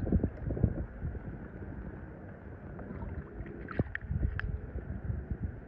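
Swimming-pool water sloshing and lapping, with wind rumbling on the microphone. A few light clicks about four seconds in as a die-cast toy car is handled on the stone pool deck.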